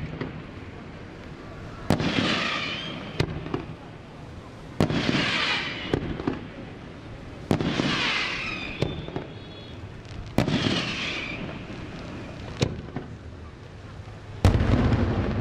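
Daytime fireworks display: five loud bangs about every three seconds, each followed by about a second of crackling, with a single smaller pop between most of them.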